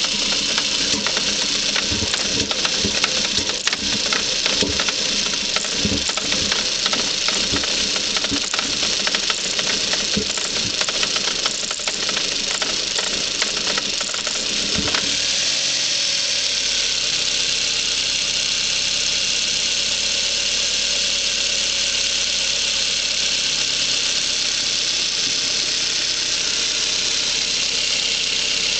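Cold-started 1.8-litre 20-valve turbo four-cylinder (AUQ) idling roughly and unevenly, stumbling with irregular knocks from a cold-start misfire. About halfway through the misfire clears and the idle settles into a smooth, steady run.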